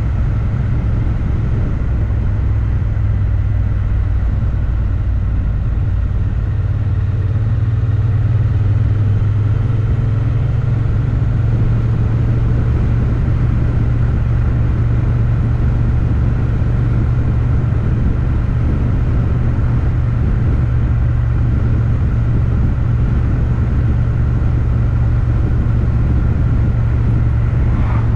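Motorcycle engine running steadily at road speed, a deep even drone that picks up slightly about eight seconds in.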